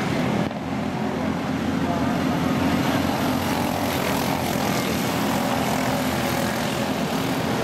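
Small single-cylinder engines of several quarter-midget race cars running together at racing speed around a short oval. The sound is a steady, dense buzz, with a brief dip about half a second in.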